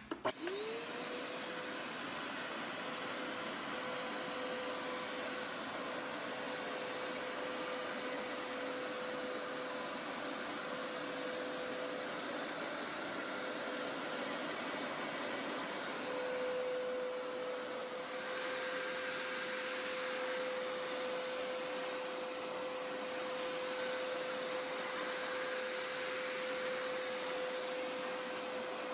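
Hoover Power Scrub Elite Pet carpet cleaner switched on, its motor spinning up to a steady whine within the first second and then running steadily.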